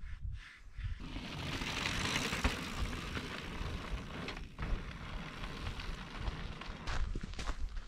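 Wind buffeting an action camera's microphone, a rushing noise with a low rumble. Near the end, footsteps on a sandy trail come through as a run of short steps.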